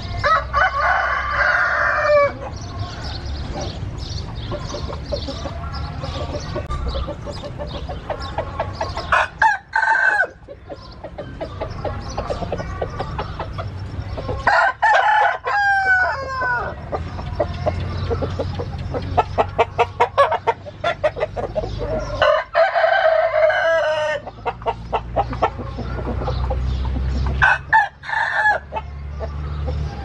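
Gamecock roosters crowing several times, each crow lasting a second or two, with clucking in between.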